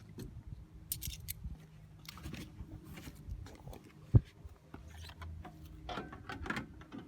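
Hands sorting through leftover vending-machine candy: light rustling and small clicks, with one sharp knock about four seconds in.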